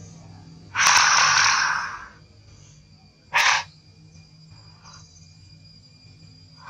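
Long-tailed macaque giving harsh, breathy calls. There is a long one about a second in, a short one about three and a half seconds in, and another starting right at the end.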